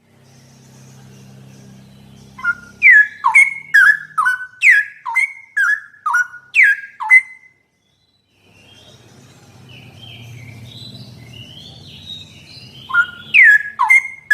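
Straw-headed bulbul (cucak rowo) singing: a run of about a dozen loud, clear whistled notes, each falling sharply in pitch, then softer warbling, and another loud run of falling whistles near the end.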